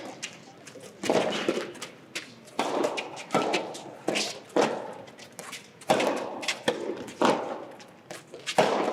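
Soft tennis rally: a rubber ball struck by rackets and bouncing on the court, a run of sharp hits about every half second to a second, echoing in a large gymnasium.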